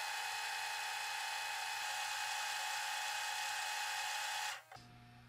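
A steady electronic whirring buzz, the fast-forward sound effect laid over sped-up footage; it cuts off suddenly about four and a half seconds in, leaving a faint low hum.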